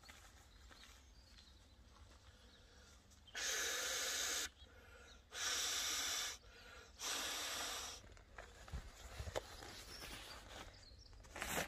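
A person blowing three long breaths, each about a second, into the valve of an inflatable sleeping mat to inflate it.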